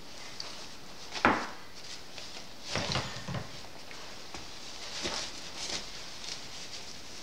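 Three-week-old puppies playing and scuffling in a whelping box: paws scrabbling on the pads and knocking against the box's wall. There is one loud, short falling squeak a little over a second in.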